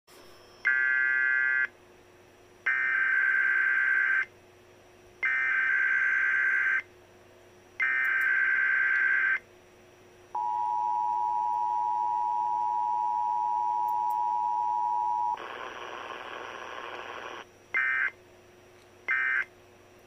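Emergency Alert System test tones played through a laptop's built-in speakers. Four buzzy data bursts of the SAME header come first, then the steady two-tone attention signal for about five seconds. About two seconds of hiss follow, then two short end-of-message data bursts near the end.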